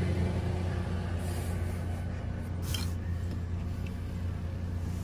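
Toyota Land Cruiser 80 series engine idling with a steady low hum, and a couple of faint rustles of a hand on the seat covers.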